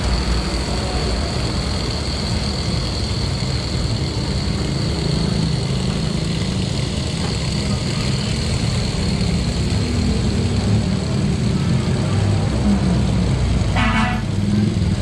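Steady rumble of passing road traffic, with a short vehicle horn toot near the end.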